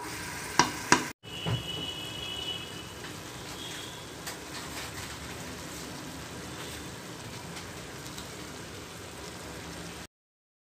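Meat and chopped onions sizzling in hot oil in an aluminium pressure cooker, a steady crackling hiss. Near the start a wooden spoon knocks twice, sharply, against the pot.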